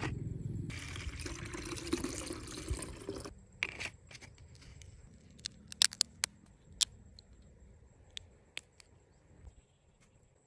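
A dense rushing noise for the first three seconds, then a string of sharp plastic clicks and crackles as the thin plastic cups of earth-shaped gummy candies are peeled open.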